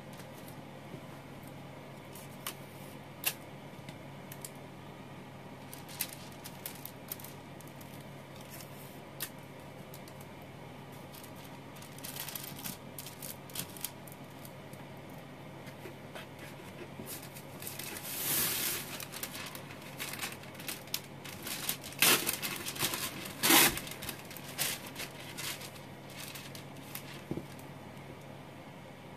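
Sheet of wax paper crinkling and rustling as it is handled and pressed into place, with scattered small ticks. It builds to louder rustling past the middle and two loud sharp crackles or rips about three-quarters of the way through.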